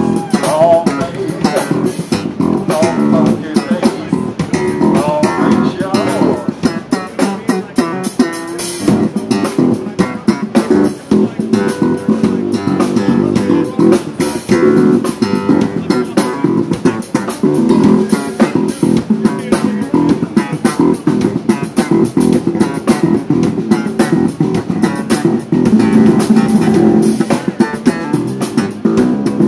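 Live funk groove: electric bass and electric guitar playing over a drum kit.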